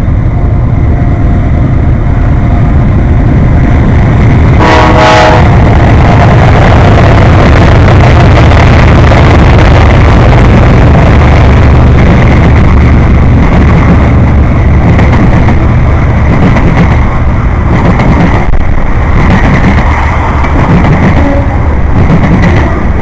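Freight train led by a GE AC4400 and a Norfolk Southern ES40DC diesel locomotive passing close by, with a loud, steady rumble of the locomotives and rolling cars. The lead locomotive's horn sounds one short blast about five seconds in.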